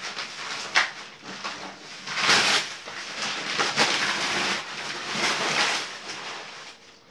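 Brown kraft paper wrapping being pulled off a cardboard box and crumpled by hand: a run of paper rustles and tears, loudest about two, four and five seconds in.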